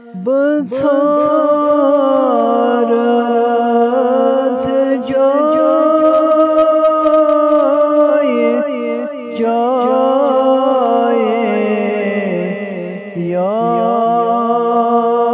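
A solo male voice singing a naat, an Islamic devotional poem, in long held notes with ornamented turns of pitch, breaking off briefly twice.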